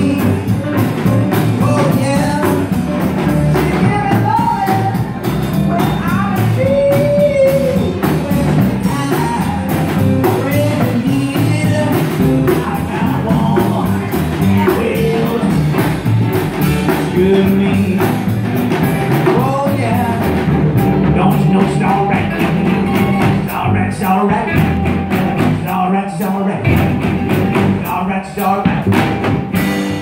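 Small live band playing: two guitars, upright bass and drum kit, with a continuous bending melody line over a steady beat.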